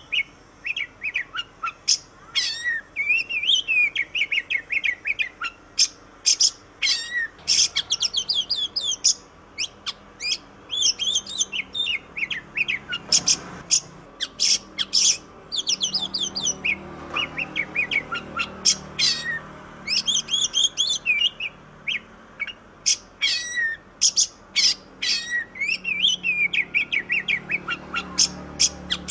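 Oriental magpie-robin (kacer) singing a fast, varied song of whistles, chirps and quick trills, broken by short pauses.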